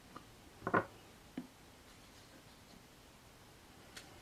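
A few light knocks and clicks of small lock-picking tools being picked up and set down on a bench, the loudest about a second in, with quiet between.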